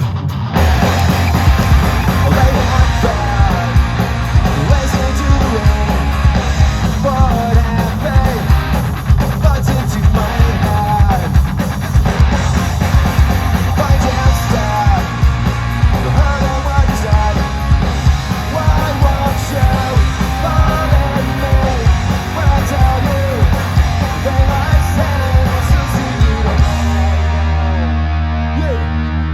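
Punk rock band playing live at full volume: distorted electric guitars, bass and drums with a sung lead vocal. Near the end the playing settles into long held notes.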